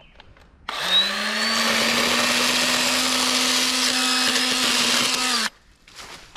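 Echo electric pruning saw with a 6-inch bar running: its motor spins up less than a second in, holds a steady speed for about five seconds, then cuts off suddenly.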